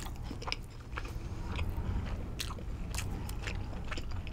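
Close-miked eating: a person biting and chewing food, with irregular short, sharp mouth clicks.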